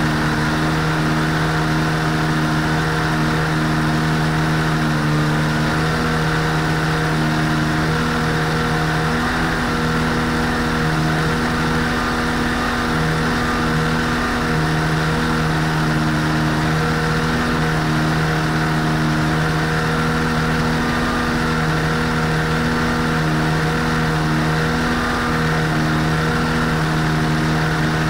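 Rotax 503 two-cylinder two-stroke engine of an ultralight airplane idling steadily with its propeller turning. The idle is set too low, low enough that the engine could die.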